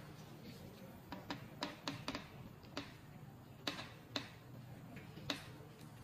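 Small, sharp plastic clicks and taps, irregularly spaced, as the mechanical body of a fiber optic fast connector is handled and the stripped fiber is pushed into it. The sharpest click comes about five seconds in, over a steady low hum.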